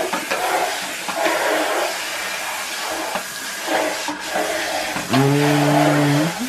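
Water running from a bathroom tap into the sink, splashing unevenly as hands wash something under it. About five seconds in, a steady low hum starts and holds for over a second.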